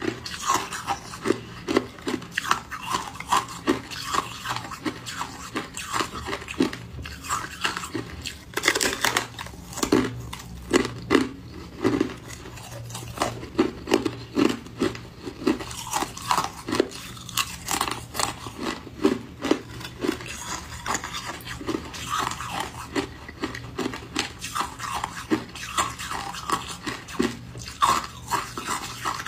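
Hard frosted ice being bitten and chewed: a steady run of crisp crunches and crackles, one or two a second.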